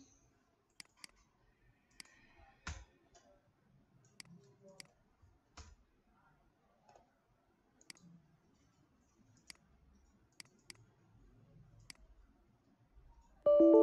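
Computer mouse clicking, a dozen or so sharp clicks at irregular intervals, several in quick double-click pairs, with a couple of duller knocks among them. Near the end, loud piano-like music comes in suddenly.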